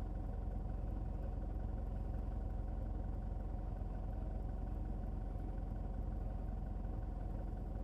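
Van engine idling: a steady low hum that does not change.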